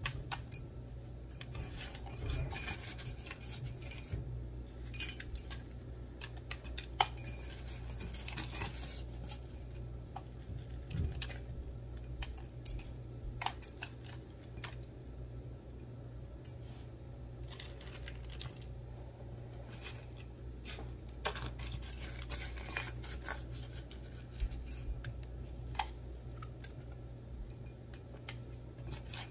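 Crushed ice being handled and pressed by hand in a stainless steel bowl: scattered crunching and crackling with sharp clinks against the metal, the loudest about 5 and 7 seconds in, over a steady low hum.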